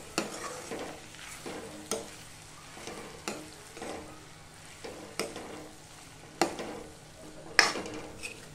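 A steel spoon stirring cooked ridge gourd and moong dal in a metal kadhai, knocking and scraping against the pan about six times, loudest near the end. The food sizzles faintly underneath.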